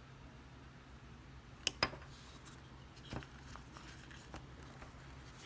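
Plastic bath toy being cut and pried open by hand: two sharp plastic clicks close together a little under two seconds in, then a few lighter clicks and taps.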